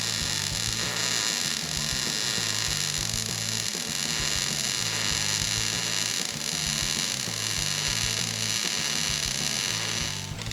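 Background music with a repeating bass line, over a steady high hiss that is likely a power tool at work.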